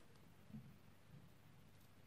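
Near silence: room tone, with a faint low bump about half a second in.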